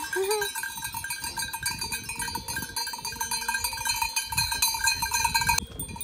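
Many bells on a small herd of grazing livestock jangling together as the animals come running up, then dropping away suddenly near the end.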